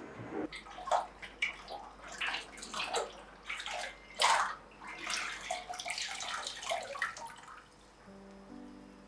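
Water sloshing and splashing in irregular bursts, as something is washed by hand in water. Background music with held notes comes in near the end.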